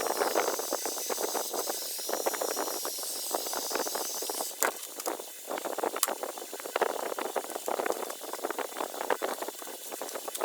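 Crackling and scraping of rusty insulation being worked by hand inside a refrigerator door, a dense run of small ticks and rustles. A faint high whine stops about four and a half seconds in.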